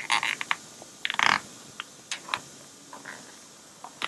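Vinyl upholstery cover and its plastic clip being pressed by hand into the channel of a plastic console lid frame: two louder rustling bursts, near the start and about a second in, then scattered light clicks and taps.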